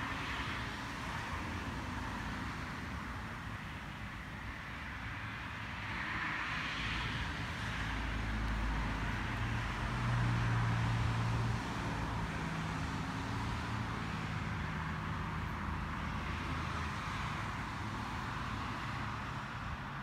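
Steady outdoor hiss of distant traffic, with a low engine hum that builds to its loudest about halfway through and then fades away.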